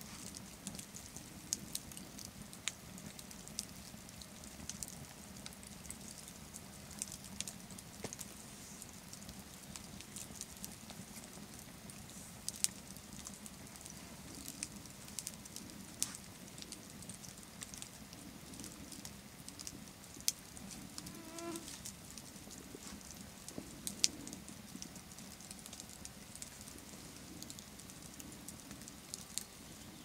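Wood campfire crackling, with irregular sharp pops and snaps over a low steady hiss of the burning embers.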